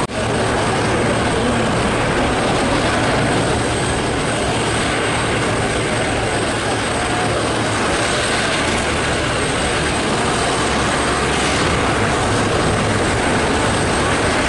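Several Eurocopter EC120 Colibri helicopters running on the ground, giving a steady turbine-and-rotor drone with a low hum underneath and a faint high whine.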